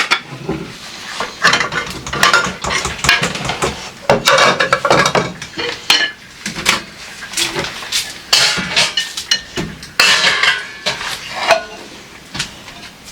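Dishes and cutlery clinking and clattering as they are handled in a series of irregular knocks.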